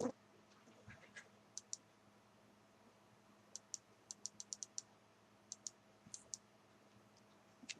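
Light, sharp clicks from a laptop being operated, mostly single or paired, with a quick run of about six in a row about four seconds in, over a faint steady hum.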